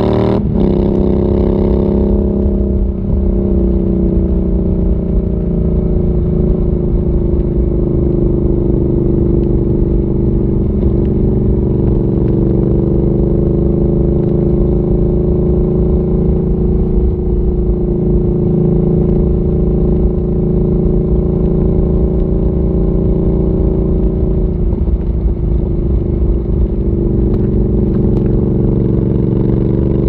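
Royal Enfield Interceptor 650's 648 cc parallel-twin engine, fitted with a Zard aftermarket exhaust, heard on board while the motorcycle is ridden at a steady cruise. The engine note holds fairly even, then rises near the end as the throttle opens.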